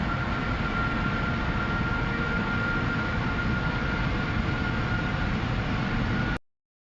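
A car running hard at a steady pitch, heard from on board. Heavy engine and road noise with one steady whine on top. It cuts off suddenly about six seconds in.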